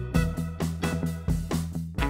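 Instrumental background music with guitar and drums keeping a steady beat.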